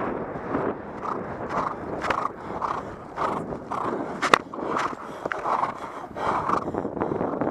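Horse moving over grass, heard from the saddle: a steady rhythm of strides, about two a second, with tack rattling and a sharp click about four seconds in.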